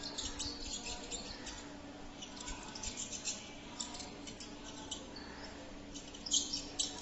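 Mouse squeaking: a run of short, high-pitched squeaks in irregular bursts, with a louder cluster near the end.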